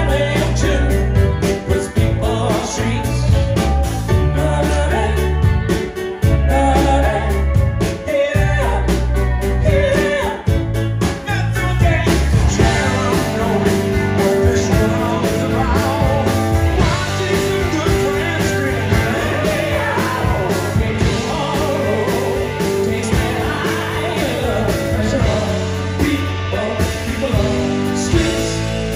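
Live rock band playing, with a man and a woman singing over electric guitar, bass and drums.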